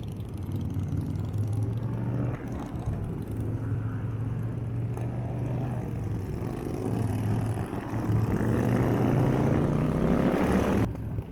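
Motorcycle engine running under way with a steady low note; about two-thirds of the way in it grows louder and the revs climb, then the sound cuts off suddenly just before the end.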